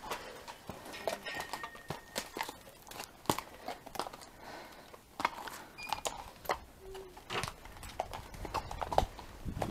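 A ridden horse's hooves and tack making an uneven run of clicks and knocks, with a low rumble building near the end.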